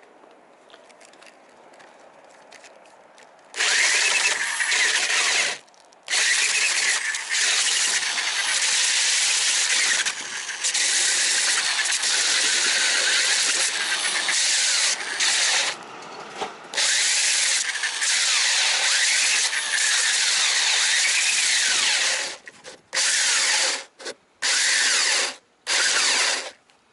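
Electric drill spinning a homemade sandpaper disc that grinds against the hard cured epoxy of a fibreglass-covered boat hull. It starts about three and a half seconds in and runs with two short pauses. Near the end it switches on and off in short bursts.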